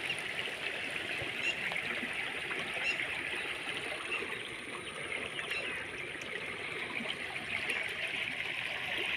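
Shallow muddy floodwater running steadily over gravel and a concrete edge, with a constant rush and trickle.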